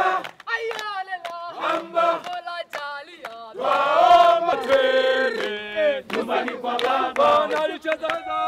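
A group of men singing and chanting together in a welcome song, with hand claps keeping time. A loud, long held note comes about four seconds in.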